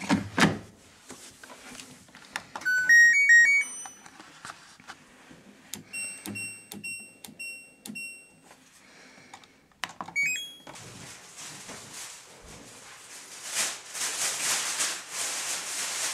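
Washing machine control panel beeping: a short rising jingle, then a run of about six evenly spaced beeps at one pitch as a programme is set, and a couple more beeps. A steady rushing hiss then sets in and grows louder near the end as the wash starts.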